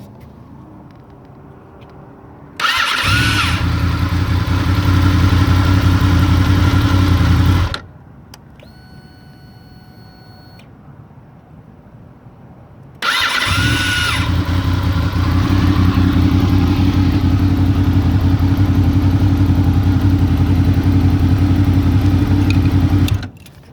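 Honda VFR800 V4 engine started twice. Each time it catches and runs steadily, with a brief whistle that rises and falls just as it fires, the whistling noise on start-up that the owner is asking about. The first run lasts about five seconds and the second about ten, each ending when the engine is shut off. Between the starts a steady high electronic tone sounds for about two seconds.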